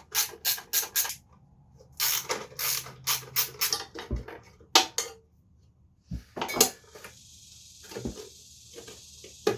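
Hand tools working on a small motorcycle during disassembly: a run of sharp clicks and knocks, several in quick succession at first, then more scattered. A steady hiss over the last couple of seconds.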